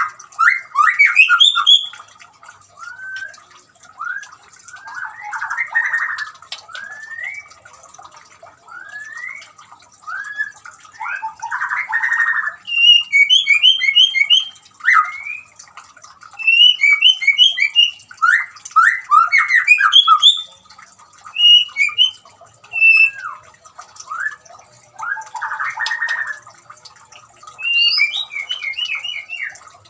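White-rumped shama singing: a run of varied whistled phrases, slurred glides and quick repeated note series, broken by a few harsh rasping bursts, with short pauses between phrases.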